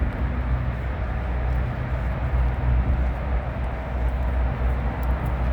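Steady rumble of distant interstate highway traffic.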